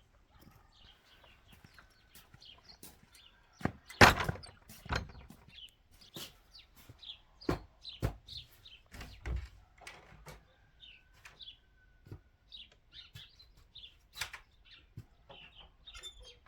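Irregular knocks and thuds, the loudest a sharp knock about four seconds in, with faint short high chirps between them.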